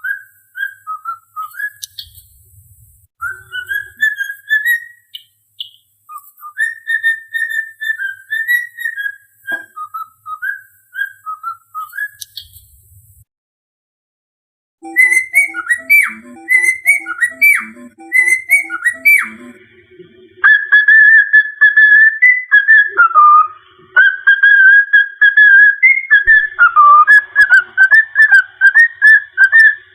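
Cockatiel whistling a tune in short wavering phrases, with a break of about a second and a half midway, after which the whistling comes back louder and more continuous.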